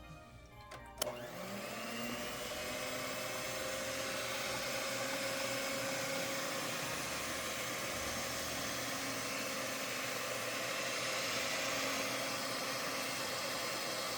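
Electric mixer motor starting about a second in, spinning up briefly in pitch, then running steadily as it beats eggs into creamed butter and sugar for a cake batter.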